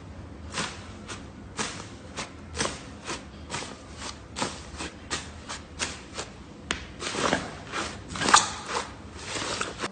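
Slime being squeezed and pressed, making a run of short wet clicks and pops about two a second, loudest near the end.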